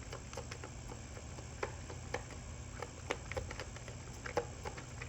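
Tarot cards being handled, giving soft, irregular clicks and taps, over a steady low hum.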